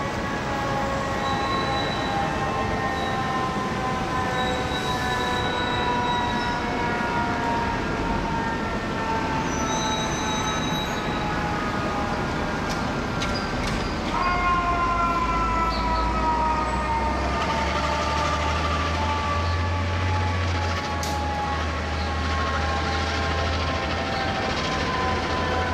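Fire apparatus mechanical siren (Federal Q-type) winding down in a slow falling pitch. It is revved up again about halfway through, then coasts down once more over a low engine rumble from the stopped traffic and trucks.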